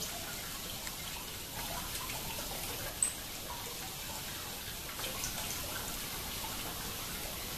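Water trickling and splashing steadily down a small stacked-stone garden cascade, with a single short, sharp, high-pitched chirp about three seconds in.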